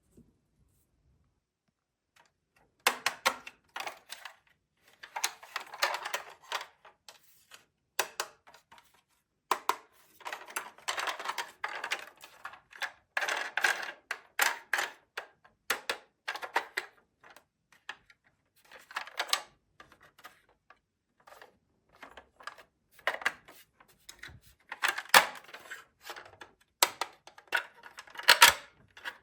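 Small plastic toy pieces being handled, unpacked and snapped into place: irregular clicks and taps mixed with short rustling, starting about three seconds in.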